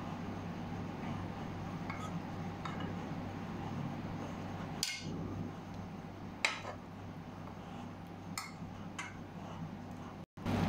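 Metal spoon clinking and scraping against a frying pan of squid in sauce: about six sharp clinks spread through, the loudest two about halfway, over a steady low hum.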